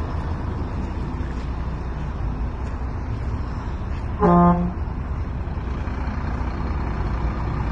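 A vehicle horn gives one short toot, about half a second long, some four seconds in, over a steady low rumble.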